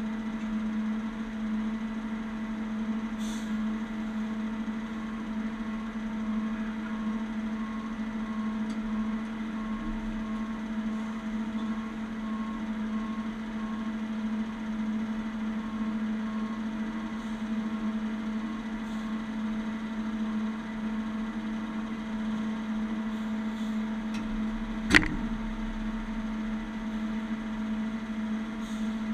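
Heavy-duty wrecker's diesel engine running at a steady idle, with one sharp click or knock about 25 seconds in.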